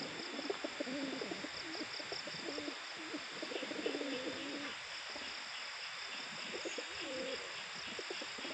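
A flock of domestic pigeons cooing, their calls overlapping through the first few seconds and thinning out after that.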